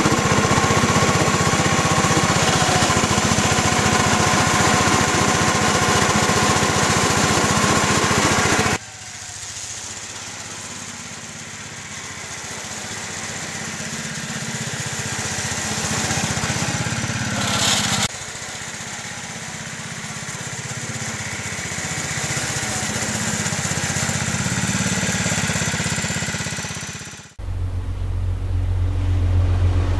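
Small engine of a 7.5-inch-gauge ride-on diesel switcher locomotive running steadily as it pushes a snowplow through snow. It is loud and close at first, then after a cut about nine seconds in it is heard from trackside, growing louder as the locomotive approaches. Near the end it gives way to a low steady hum.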